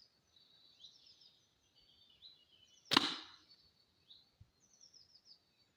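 An arrow shot from a bow hitting the back of a motorcycle helmet about three seconds in: one sharp crack with a short ringing tail. Birds chirp faintly in the background.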